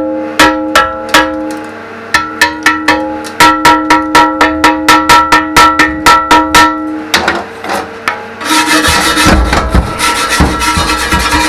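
A chipping hammer strikes a steel digger bucket to knock slag off fresh stick welds: sharp metallic blows with the steel ringing after each, about three to four a second, ending about seven seconds in. A rapid, rough scrubbing on the metal follows in the last few seconds.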